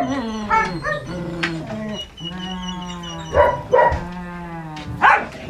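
A dog barks a few sharp times over two long, low, steady animal calls, the first at the start and the second through the middle.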